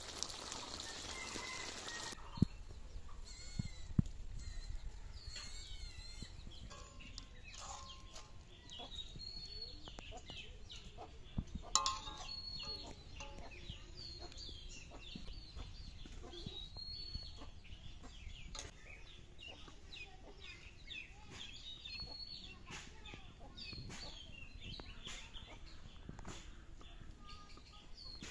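Birds chirping over and over with short high calls, and a few sharp clinks of a steel ladle against a steel plate and wok while curry is served, the loudest about twelve seconds in. A short hiss in the first two seconds.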